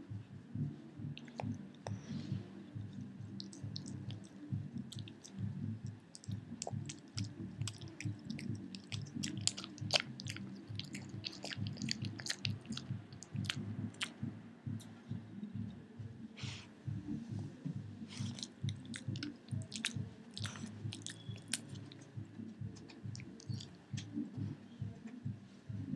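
Pekingese dog chewing a rawhide treat: a fast, unbroken run of gnawing with many sharp clicks of teeth.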